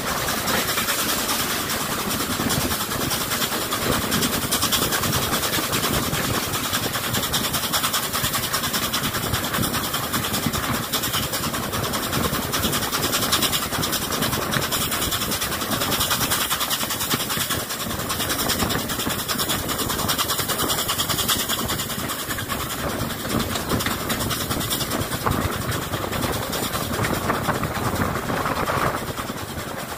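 Passenger coach of a steam-hauled train running along the line, heard from an open carriage window: a steady rush of wind and rolling wheel noise.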